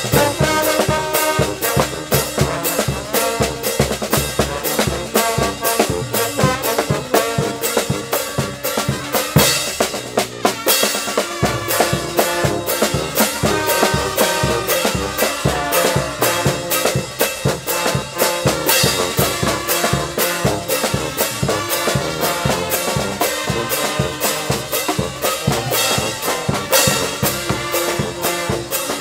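Upbeat music led by brass instruments over drums, with a steady beat.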